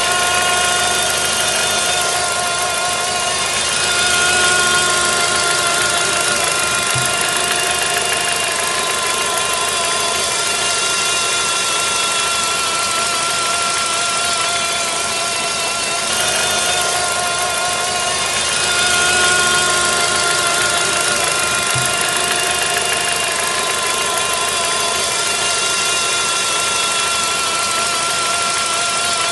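Car engine running with a steady whine from its automatic transmission, swelling a little now and then; the same stretch of sound plays twice. The whine is from inside the gearbox, present in P and N and quiet in D or R, which the mechanic says could be in the oil pump or the torque converter.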